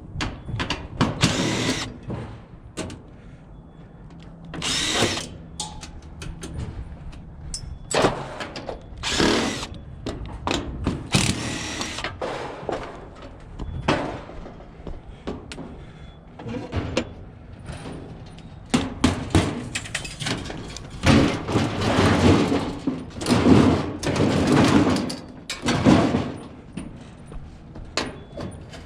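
Handheld power drill/driver run in repeated short bursts, with short clicks and knocks between the bursts.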